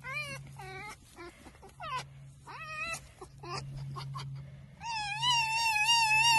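Red fox making its high-pitched playful "laugh": a string of short wavering squeals, then one long quavering whine from about five seconds in.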